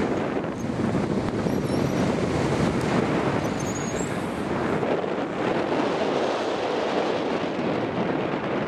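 Steady rush of wind buffeting the microphone, from the airflow past a tandem paraglider in flight on a winch tow.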